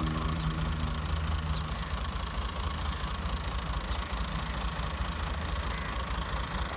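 Massey Ferguson 240 tractor's three-cylinder Perkins diesel idling steadily while the tractor stands still.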